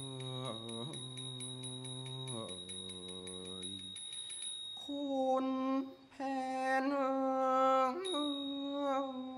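Thai classical singing: long held, wordless melismatic vowels, first in a low voice, then from about five seconds in in voices about an octave higher. A high steady ringing tone with faint regular ticks sounds behind the first half.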